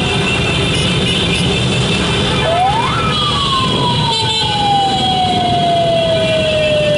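A motor-driven siren winds up quickly about two and a half seconds in, then slowly falls away, its pitch sinking over the next four and a half seconds. Underneath runs steady, loud road-traffic and engine noise.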